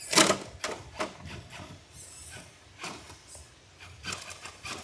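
Traxxas TRX-4 RC crawler's tyres and chassis scrabbling and scraping against rock in short bursts as it is driven while wedged on its side, the loudest burst about a quarter-second in.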